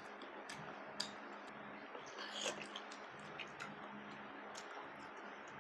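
A person chewing food close to the microphone: irregular wet mouth clicks and smacks over a steady faint hiss, the sharpest click about a second in.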